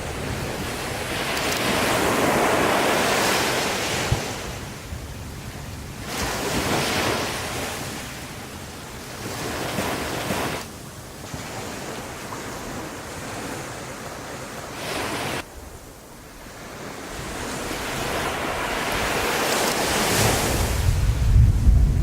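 Wind buffeting the microphone over the rush of sea waves, swelling and fading every few seconds, with a deep rumble building near the end.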